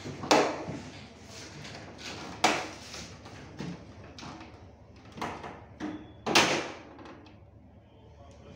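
Plastic casing and hinged front panel of a split air-conditioner indoor unit being handled and lifted open: several sharp plastic knocks and clicks a second or more apart, the loudest near the start, about two and a half seconds in and about six seconds in.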